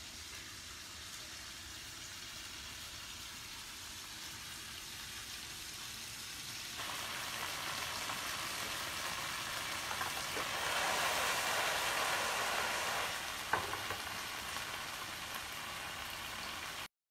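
Clams sizzling as they fry in a hot pan with chili, ginger and scallion, their shells starting to pop open as they cook through. The sizzle gets louder about seven seconds in, with one sharp click near the end, then the sound cuts off suddenly.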